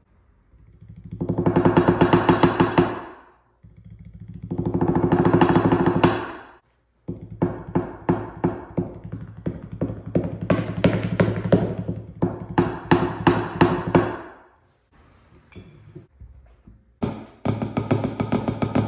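Wooden drumsticks on a Meinl Split Tone practice pad: two fast rolls that swell up and fade away, then accented sticking patterns of rapid strokes. After a short lull with a few soft knocks, fast even strokes start again near the end.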